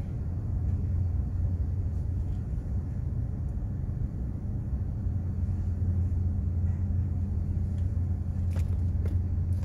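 Steady low machinery drone aboard a container ship at sea, an even hum with a rumbling undertone. A couple of faint ticks come near the end.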